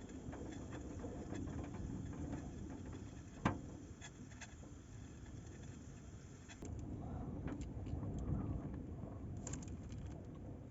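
Strong, gusty wind rising and falling, with scattered light clicks and a sharp knock about three and a half seconds in; the wind grows louder about two thirds of the way through.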